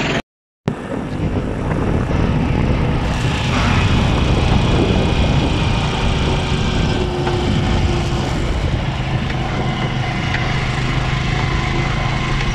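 After a brief dropout, a motorcycle being ridden along a road: its engine running at a steady cruise under a thick rush of wind noise on the microphone.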